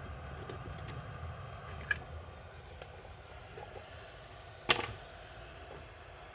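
Light clicks and taps of small tools and parts being handled, with one sharp click nearly five seconds in, over a low steady hum.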